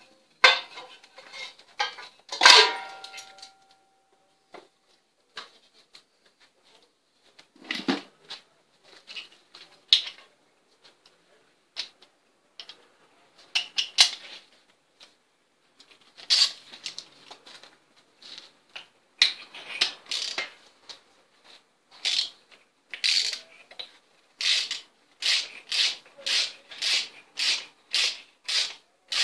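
Hand tools on a spark plug: a ratchet wrench with a spark-plug socket and extension clinking and scraping against metal, with one ringing metal clink about two and a half seconds in. Near the end the ratchet clicks in a steady rhythm of about two strokes a second as the plug is worked loose.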